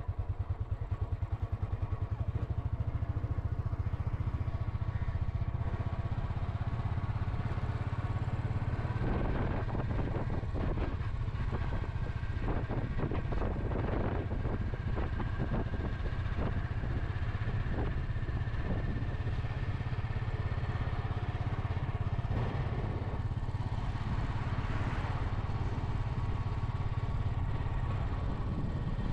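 Motorcycle engine running steadily while being ridden at cruising speed, heard from on the bike, with a rapid, even engine beat.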